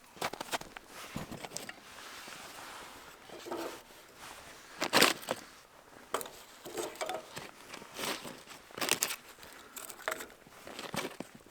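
Irregular clicks, knocks and rustling from hands handling camp cooking gear, with one louder knock about five seconds in.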